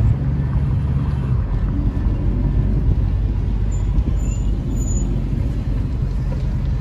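Steady low rumble of a car driving slowly through city streets, heard from inside the moving car: engine and tyre noise.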